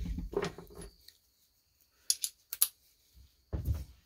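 Hand tools being handled: a brief rustle, then a few light metallic clinks about two seconds in, and dull knocks near the end.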